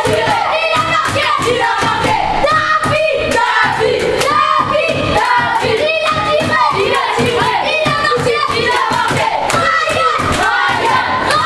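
A group of boys chanting and singing together loudly, with rhythmic hand claps and slaps.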